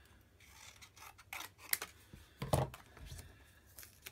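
Paper and card being handled and snipped with scissors: a series of short, crisp snips and rustles, with a dull knock on the wooden tabletop about two and a half seconds in.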